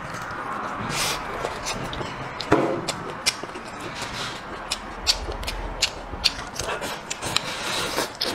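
Close-miked eating of braised sparerib: chewing and sucking meat off the bone, with many wet mouth clicks and lip smacks, and a short, louder sucking sound about two and a half seconds in.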